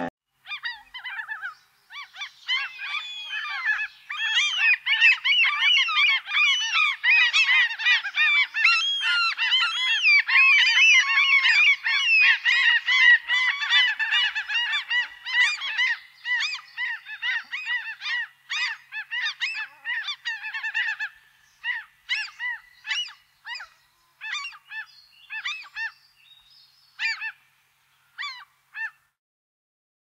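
A flock of seagulls calling, many cries overlapping densely, then thinning out after about sixteen seconds to scattered single calls that stop near the end.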